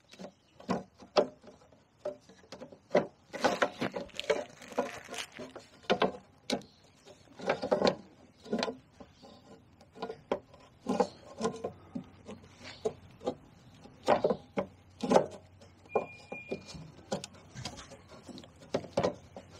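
Irregular clicks, knocks and rubbing as a plastic scraper blade is pushed and worked by hand into place on the bottom of a Honda HS snow thrower's housing.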